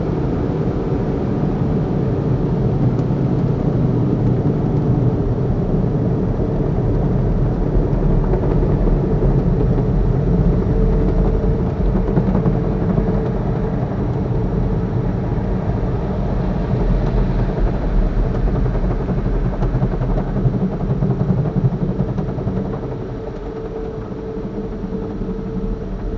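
Rotating brushes and cloth curtains of a drive-through car wash scrubbing over a car, heard from inside the cabin as a steady low rumble with a constant machine hum. It gets quieter about 23 seconds in.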